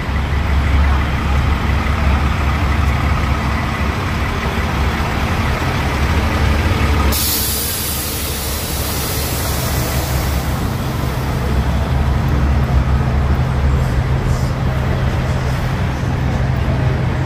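Semi-truck diesel engines idling with a steady low rumble. About seven seconds in, a loud hiss of air from a truck's air brakes bursts out and fades over about three seconds.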